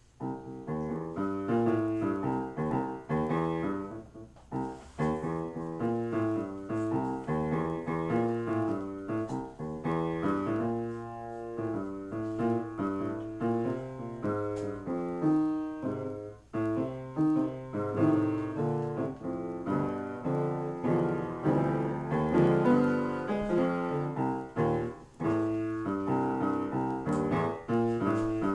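Upright piano played in a free improvisation: a continuous flow of notes and chords through the low and middle register, starting right at the opening and thinning out briefly a few times.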